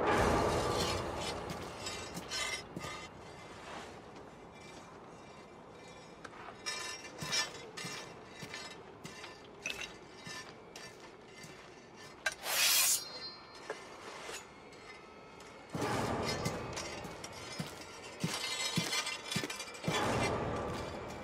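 Film sound effects of lake ice cracking and crackling as the dead walk onto it, many sharp clicks over a low rumble, under quiet tense music. It is loudest at the start, with a sharp burst about halfway through and two swells near the end.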